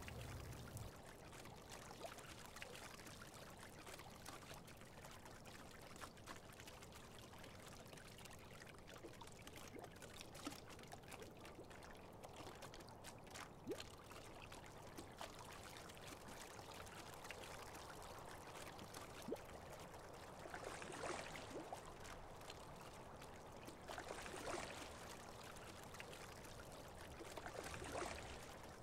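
Faint water sound of a single scull and its oars moving through calm water. Three louder swishes come about three and a half seconds apart in the second half.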